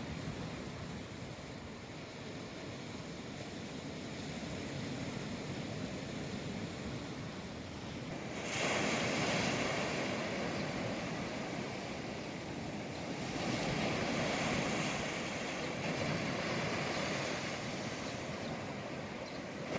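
Sea waves breaking on the shore: a steady wash, with three louder surges of breaking surf, the first a little under halfway in and the loudest.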